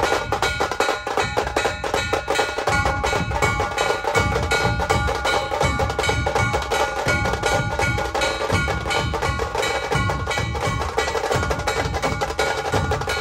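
Loud music driven by fast, dense drumming: rapid sharp strikes with deep thumps underneath.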